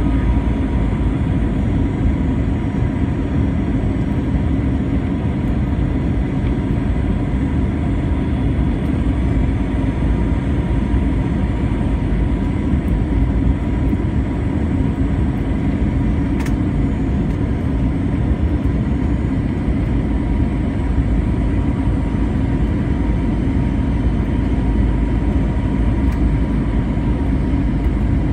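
Steady cabin roar of a jet airliner on its landing approach: engine and airflow noise with a faint steady whine above it.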